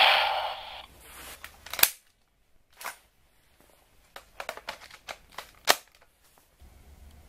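A toy sound effect from the Chalice Rouzer's small speaker fades out in the first second. Then come a handful of sharp plastic clicks and knocks as the Chalice Rouzer belt buckle and Chalice Arrow toys are handled, the loudest about two seconds in and near six seconds.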